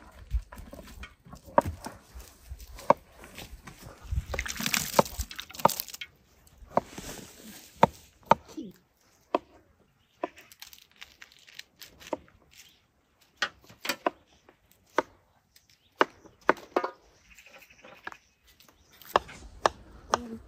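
Knife chopping on a cutting board: sharp, single cuts at an uneven pace, roughly one a second, with a stretch of rustling and scraping about four to six seconds in.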